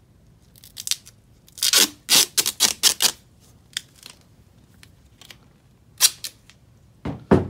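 Duct tape being pulled off its roll in short, loud rips: a quick run of them about two seconds in, then a few single rips later on.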